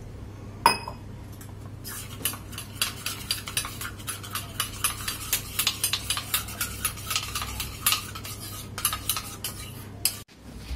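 A spoon stirring a flour-and-water batter in a small steel cup, clinking quickly against its sides at about four or five strokes a second, after a single clink about a second in.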